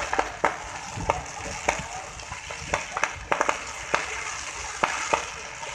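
Fireworks crackling overhead: a continuous sizzling crackle broken by sharp, irregular pops, several a second.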